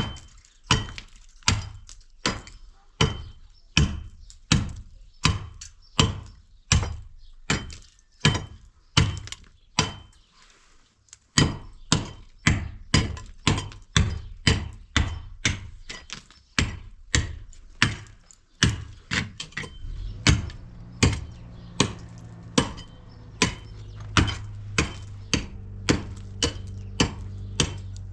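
Steady, evenly spaced blows of a hand tool on a hard surface, a little under two a second, with a brief pause about ten seconds in. From about twenty seconds in, a low steady motor hum runs underneath.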